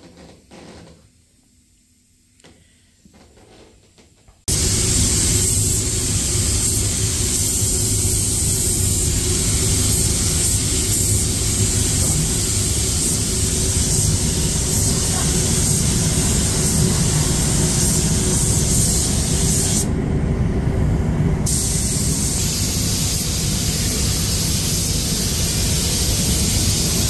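Air-fed paint spray gun hissing steadily while spraying paint, over a steady low hum. The hiss starts suddenly about four seconds in, and its high part drops out for a second or two about three-quarters of the way through.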